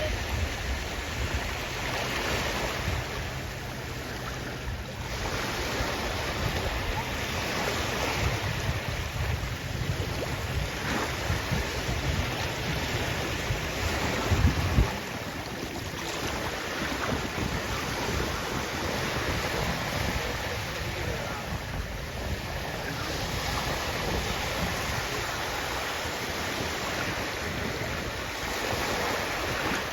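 Sea waves washing in and drawing back, the surf swelling and fading every few seconds. A low rumble underneath stops abruptly about halfway through.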